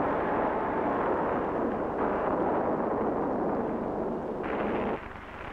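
Dense, continuous rumbling noise of an earthquake and falling rock, a film sound effect. Its tone shifts abruptly about two and four and a half seconds in, and it drops in level just before the end.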